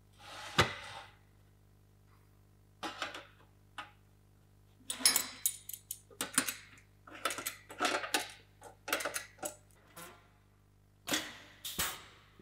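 Galvanized sheet-metal damper frame parts being handled and fitted together: a run of short metallic clatters, knocks and scrapes, with a sharp clunk near the end as a corner is joined.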